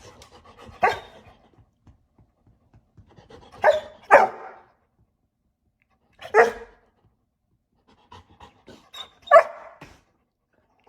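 A dog giving five short, separate barks, two of them in quick succession, with pauses of a second or more between the rest.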